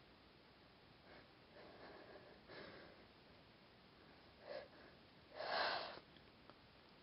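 A person sniffing and breathing hard through the nose while trying to bring on a sneeze: a few short sniffs, then a louder, longer nasal breath about five and a half seconds in.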